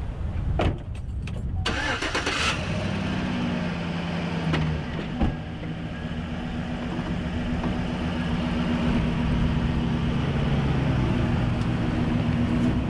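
Chevrolet Silverado pickup's engine cranking and catching about two seconds in, then idling steadily. A sharp thump comes just before it starts and another about five seconds in.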